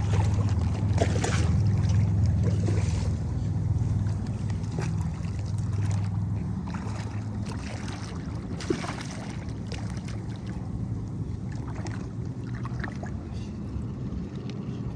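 Boat engine idling, a steady low hum that eases off after about four seconds, with scattered clicks and knocks from handling, including one sharp knock near the middle.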